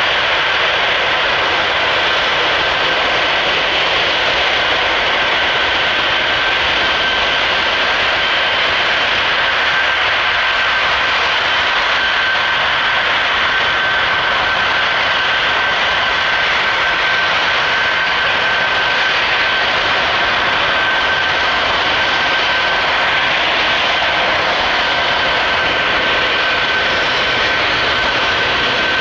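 Antonov An-124's four Progress D-18T turbofan engines running at a steady level: a continuous rushing noise with a steady high whine.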